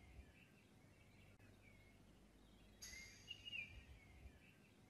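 Near silence: faint outdoor nature ambience with a soft, high chirping call about three seconds in.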